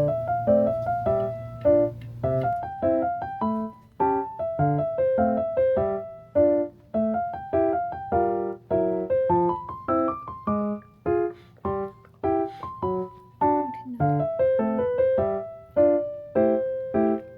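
Background music: a light, bouncy piano or electric-piano tune playing a steady run of short notes and chords.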